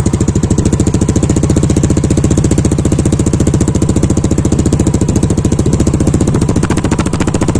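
Stock scooter engine fitted with a JVT v3 power pipe exhaust idling steadily: a fast, even putter with a mild, tame tone.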